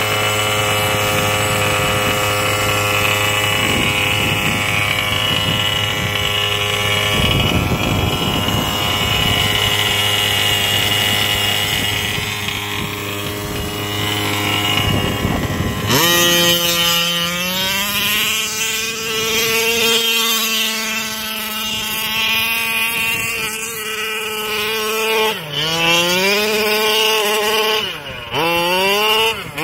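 Losi 5ive-T RC truck's two-stroke gas engine, first running steadily at one pitch. About halfway in, it revs up and down as the truck drives off over the sand, ending in several quick rising-and-falling revs.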